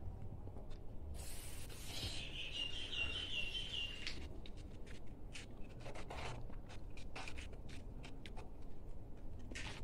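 Plastic toy figures being handled, with scattered small clicks and rubbing. A brief high warbling chirp comes about two seconds in and lasts about two seconds.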